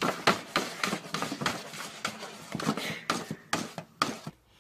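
Quick, uneven series of taps and pats, about three or four a second, as a cat bats fast with its front paws at something in front of it.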